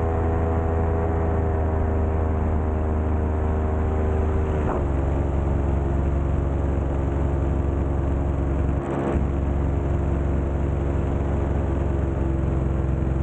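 SP140 electric paramotor's motor and propeller running steadily in flight, a loud hum of several pitched tones. About five seconds in the pitch steps down slightly as the motor slows, with a brief catch in the sound near nine seconds.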